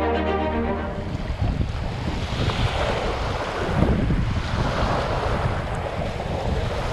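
Background music ends about a second in, giving way to wind buffeting the microphone: a steady rushing noise with gusty low rumble.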